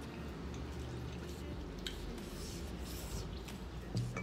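Hands squishing and mixing rice with curry, with eating noises and small clicks, over a low steady hum. A thump about four seconds in is the loudest sound.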